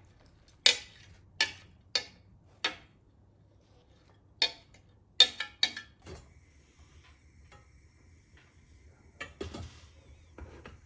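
Kitchenware clinking and clacking: a string of sharp knocks in the first six seconds. After that, a faint steady hiss and a few softer clatters near the end.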